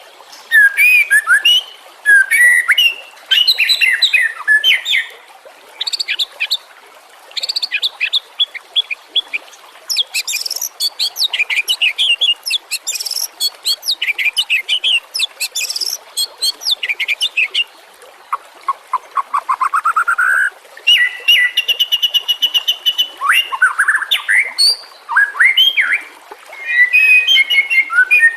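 White-rumped shama (murai batu) singing a long, varied song. It pours out quick runs of whistled, chattering and trilling notes in phrases broken by short pauses. About two-thirds through comes a fast run of rising notes.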